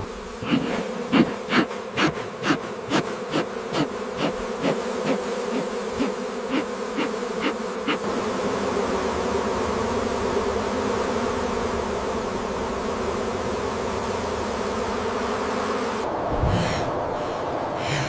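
A swarm of bees buzzing steadily. During the first eight seconds a series of sharp clicks comes about twice a second and fades away, and near the end there is a short breathy sound.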